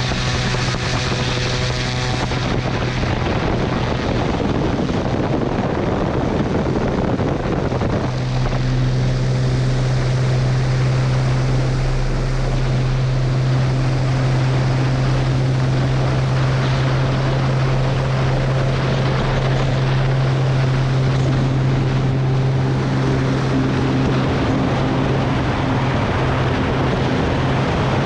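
Cessna 210 Turbo Centurion's turbocharged six-cylinder engine and propeller running, stepping up to a louder, steady low drone about eight seconds in and holding there, with wind rushing on the microphone.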